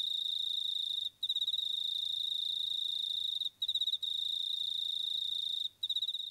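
Cricket trilling: a steady, high-pitched trill broken by three short pauses, a little over two seconds apart.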